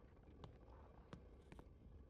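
Near silence: a low background hum with a few faint, scattered clicks.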